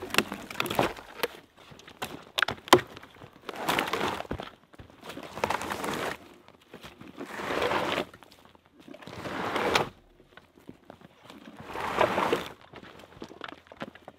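Dry brush and forest litter rustling and crunching in long swishes about every two seconds, with a few sharp knocks and clicks in the first three seconds.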